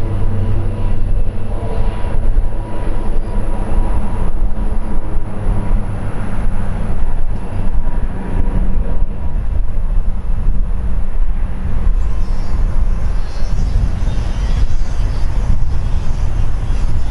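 Airplane engines running loud, a deep uneven rumble with a faint steady whine that fades out about two-thirds of the way through.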